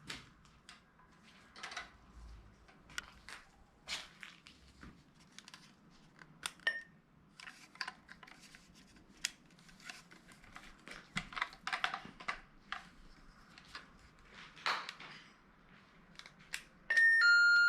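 Scattered small clicks and rustles of handling, then near the end a battery motion-sensor alarm starts a loud, repeating electronic beep, set off by movement in front of it.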